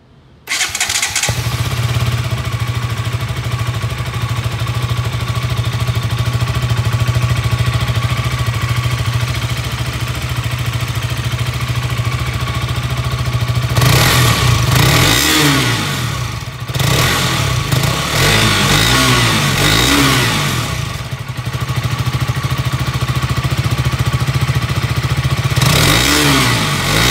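KTM RC 200's 199.5 cc single-cylinder engine, heard through its stock underbelly exhaust: it starts about half a second in and idles steadily. From about halfway it is revved in a series of quick blips, settles back to idle, and is revved again near the end.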